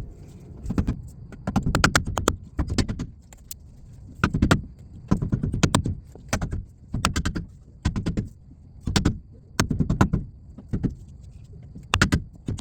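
A new pinion seal being tapped into a Chevy truck's differential housing: a long run of sharp strikes, about one or two a second, some in quick pairs, driving the seal in until it sits flush.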